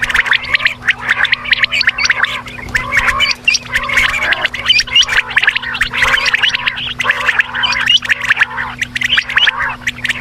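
Quail calling continuously: a loud, dense run of rapid chirps and clicks with no pause, over a steady low hum.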